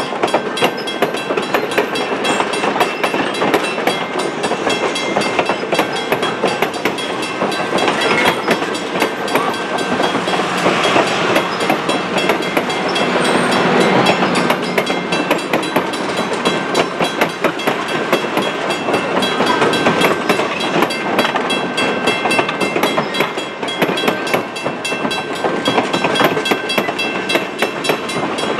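Railroad passenger cars rolling past close by, their steel wheels clicking steadily over the rail joints with a rumble of running gear, growing louder for a few seconds in the middle.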